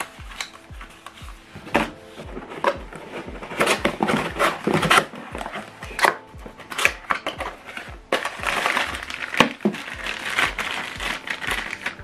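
Cardboard packaging being handled: inserts and a small cardboard box knock, tap and scrape, and a paper packet crinkles in the second half. A faint background music beat runs underneath.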